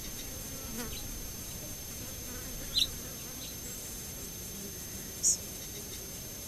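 Insects buzzing, with two short, high bird chirps about three and five seconds in; the second chirp is the louder.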